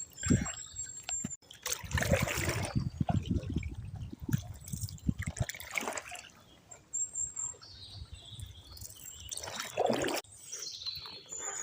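Canoe paddle strokes dipping and splashing in canal water, with water trickling and dripping off the blade; the splashes come in a few irregular bouts.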